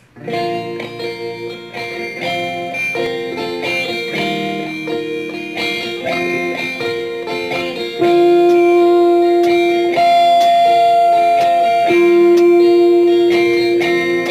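Instrumental background music of plucked guitar. From about eight seconds in it gets louder, with long held notes.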